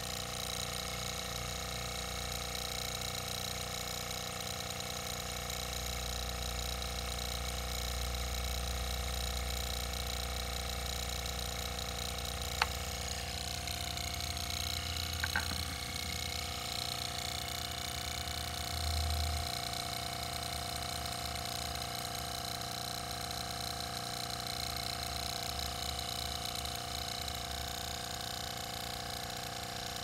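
Homemade Adams-type linear motor running the piston of a DIY laminar-flow Stirling heat pump, with a steady mechanical hum. A sharp click comes a little before halfway and a couple more a few seconds later, after which a new steady tone joins the hum.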